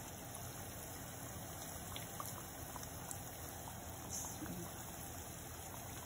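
Marinated chicken pieces shallow-frying in hot oil in a pan: a steady sizzle with scattered small crackles.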